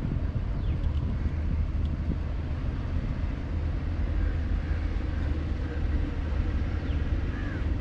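Low, steady rumble of wind buffeting the microphone outdoors, with a few faint high chirps about halfway through and near the end.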